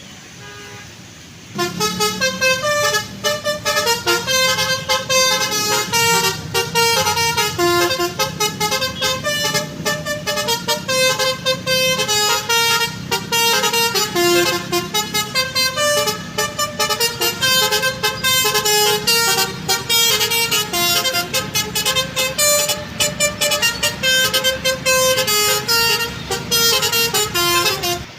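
Bus telolet basuri horn playing a fast, loud melody of rapidly changing notes. It starts about a second and a half in, after a quieter low hum.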